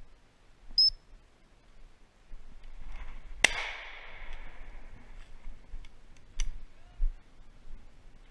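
A single shotgun shot at a flying bird about three and a half seconds in, its report echoing off through the trees. About three seconds later comes a second, shorter crack. A brief high chirp sounds about a second in.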